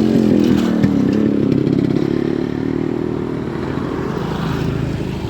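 A loud motor engine running steadily, its pitch level and even throughout.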